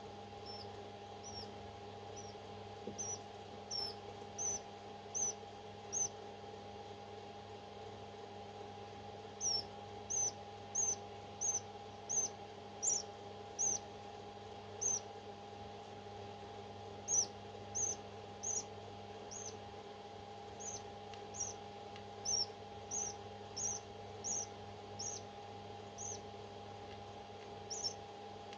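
Newly hatched parrot chick peeping: short, thin, high-pitched squeaks in runs, about one to two a second, with short pauses between runs. A steady electrical hum runs underneath.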